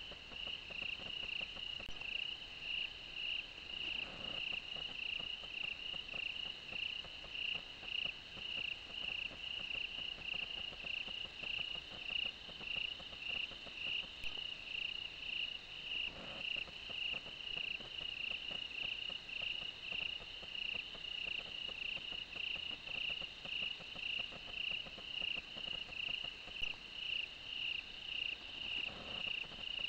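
Night insects chirping: one high, even trill pulsing about one and a half times a second without a break, the summer-night chorus of crickets.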